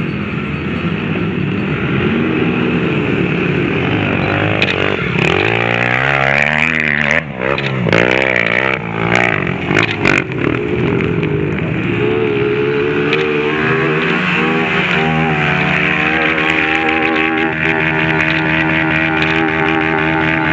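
Several off-road motorcycle engines running and revving as dirt bikes struggle up a steep, loose hill climb. From about five to ten seconds in, an engine revs hard up and down in quick bursts, with a few sharp knocks mixed in.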